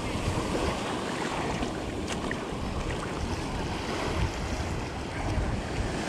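Small ocean waves washing up and sliding back on a sandy shore, a steady surf wash, with wind buffeting the microphone.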